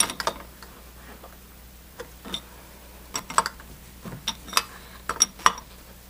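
Steel open-end wrench clinking against the brass piston retaining nuts of a refrigeration charging manifold as it is fitted and turned to snug the nuts down: sharp metallic clicks in small clusters, about one cluster a second.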